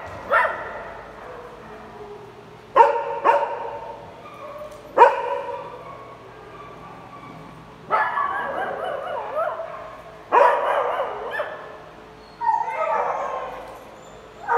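Several small dogs barking and yipping: a few single barks in the first five seconds, then three bursts of overlapping barking and yapping from about eight seconds in.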